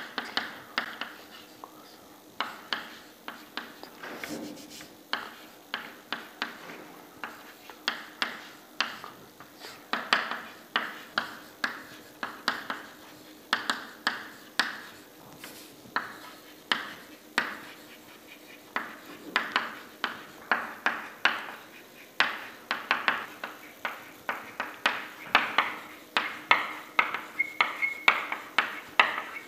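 Chalk tapping against a chalkboard while writing: an irregular run of sharp little taps, a few a second, with short pauses between words.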